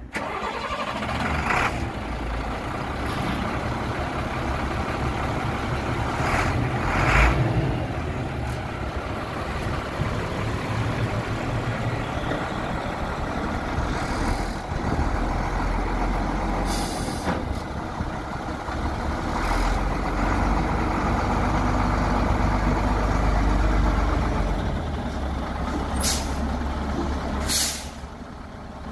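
International DT466E inline-six diesel of a 1998 International 4900 truck running with a steady low rumble as the truck moves off, with several short sharp air hisses from its air brakes, two of them close together near the end.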